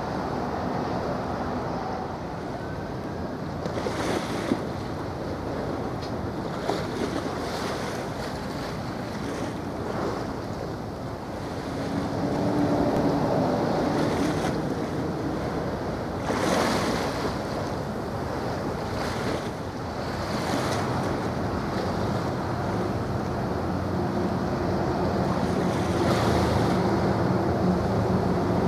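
Wind buffeting the microphone over washing waves, in irregular gusts. At times a faint low, steady hum runs underneath, like a ship's engine.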